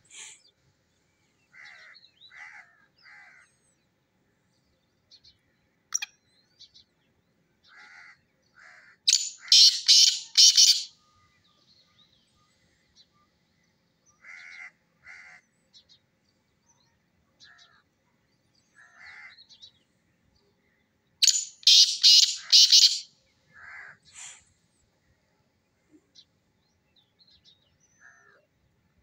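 Black francolin calling: two loud, harsh phrases of about five quick strokes each, the first about nine seconds in and the second about twelve seconds later.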